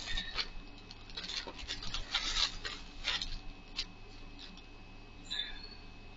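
Crinkling and rustling of a clear plastic zip-top bag being opened and a knit sweater pulled out of it, in short crackles that thin out about four seconds in.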